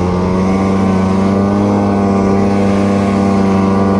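Polaris Assault snowmobile's two-stroke engine running at a steady high rev under load in powder snow, its pitch holding even after a slight dip at the start.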